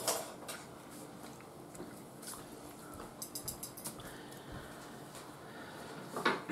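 Quiet eating at a table: faint chewing and small clicks of plates and cutlery, with a short louder noise near the end.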